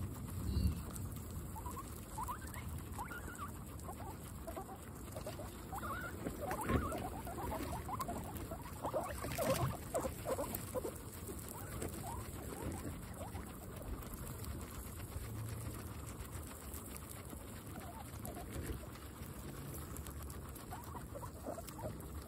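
Several guinea pigs chewing and tearing fresh grass close up: a continuous crunching and rustling, busiest about seven seconds in and again around nine to ten seconds in.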